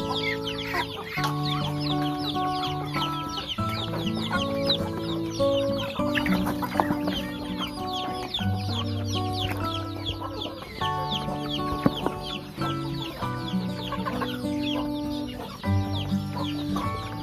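Chickens clucking with many short, high, falling peeps, over background music of held chords.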